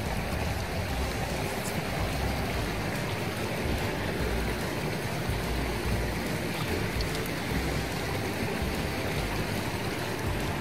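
Steady rush of river water flowing over a weir.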